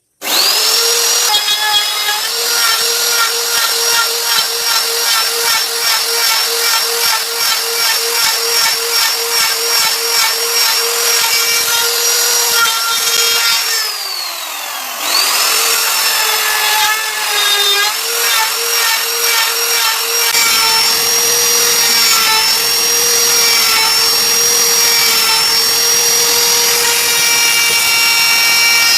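Electric power tool motor starting up and running at a steady high pitch, with a fluttering pulse through its first half. About 14 seconds in it winds down, then starts again about a second later and runs on steadily.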